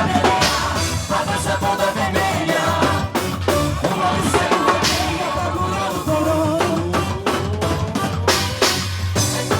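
Music with a drum kit, a bass line and a singing voice.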